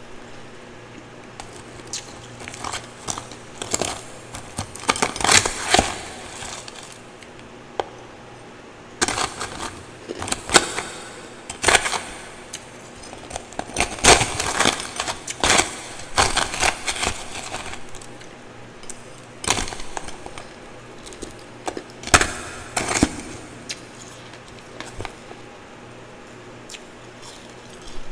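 Powdery twice-refrozen ice being scooped with a metal spoon and crunched while eating, in irregular clusters of crisp crunching and scraping with short pauses between.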